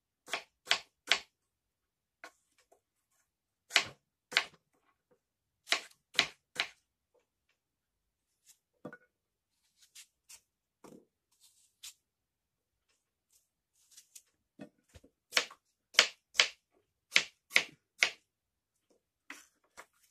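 Kitchen knife slicing through apple and knocking on a wooden cutting board: sharp knocks in clusters of two or three, with a quick run of them near the end and faint taps in between.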